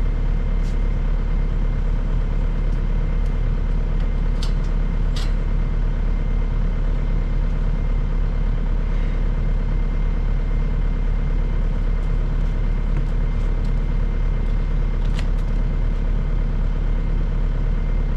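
A heavy machine's engine idling steadily, with a few faint clicks over it.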